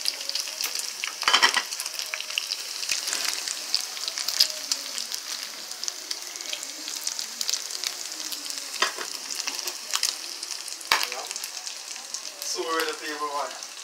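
Chicken pieces and seasoning frying in oil in a pan: a steady crackling sizzle with several sharper pops spread through it.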